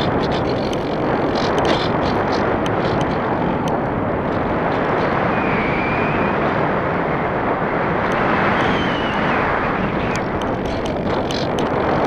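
Steady rush of airflow and wind buffeting on the microphone of an action camera riding on a Parkzone Radian RC glider in flight, with scattered faint clicks.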